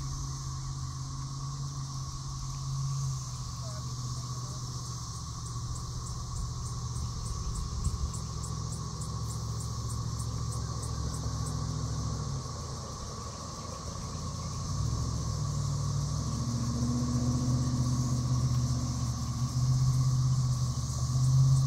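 A low, steady engine rumble that grows louder in the second half, under a steady insect buzz with a run of fast high ticking calls in the middle.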